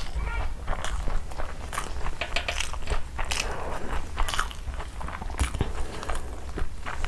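Close-miked chewing of a big mouthful of vegetable pulao rice: a run of irregular wet mouth clicks and smacks.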